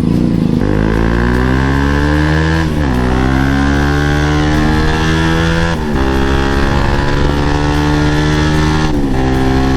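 Bajaj Pulsar NS200's single-cylinder engine pulling away and accelerating through the gears. The pitch climbs in each gear and drops sharply at three upshifts, about three seconds apart.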